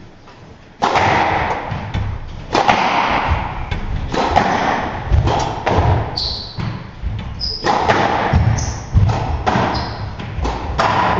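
Squash rally: the ball struck by rackets and slamming off the court walls, a sharp echoing thud about every second or so, starting with the serve about a second in. Short rubber-soled shoe squeaks on the wooden floor come in between the shots.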